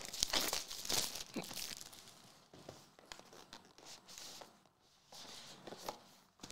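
Plastic wrapping being torn and crinkled off a sealed trading-card box, loudest in the first second or so. Then come softer crinkles and small clicks as the cardboard box is opened.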